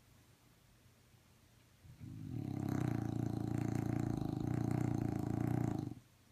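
Dog snoring: after about two seconds of quiet, one long fluttering snore of about four seconds that stops abruptly.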